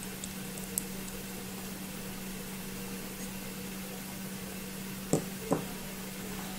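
Steady low hum under the room noise, with a faint click about a second in and two dull knocks about five seconds in from kitchenware being handled at the mixing bowl.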